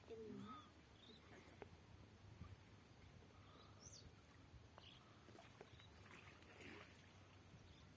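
Near silence, with faint, scattered bird calls and one brief high rising chirp about four seconds in.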